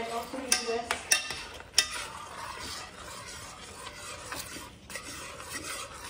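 A utensil stirring a creamy eggnog mixture in a stainless saucepan heating on the stove. A few sharp clinks against the pan come in the first two seconds, then a steady scraping hiss of stirring.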